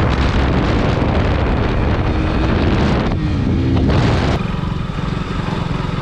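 KTM RC 200's single-cylinder engine running while riding, under heavy wind rush over the microphone. A little over four seconds in, the wind noise drops suddenly, leaving the engine's low, steady running.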